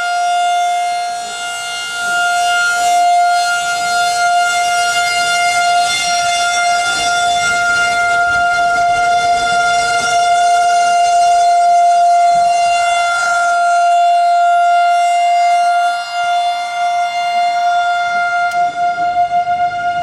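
Federal Signal outdoor tornado warning siren sounding a steady wail, held on one tone with overtones and no rise or fall in pitch.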